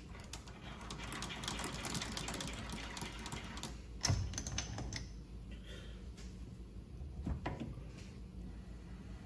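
Small metal clicks and rattles from the controls of a Vevor mini lathe, its spindle stopped, as the carriage and knurling tool are worked by hand. The clicking is busiest over the first three seconds or so, with a sharper knock about four seconds in and a few more knocks near the end.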